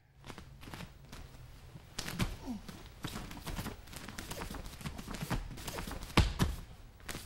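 Feet stepping and shuffling with scattered knocks and thumps, and one louder thud about six seconds in: people moving on a training mat during a jiu-jitsu demonstration.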